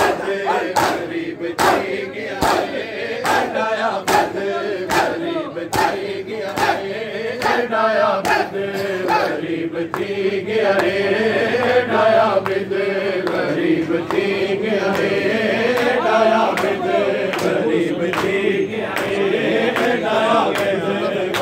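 Crowd of men chanting a noha in unison, kept in time by a steady rhythm of sharp chest-beating slaps (matam), a little over one a second.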